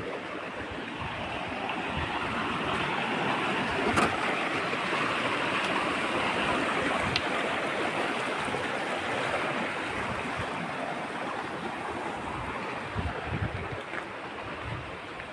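Shallow rocky stream running over boulders and stones: a steady rushing hiss that swells a little in the middle and eases toward the end, with a few low thuds near the end.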